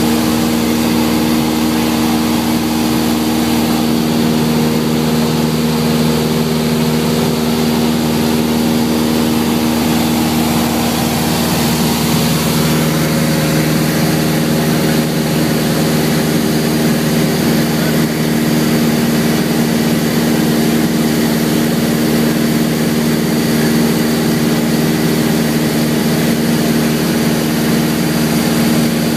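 Light aircraft's piston engine and propeller heard from inside the cockpit: a steady, loud drone with a low hum of several tones over a rushing hiss.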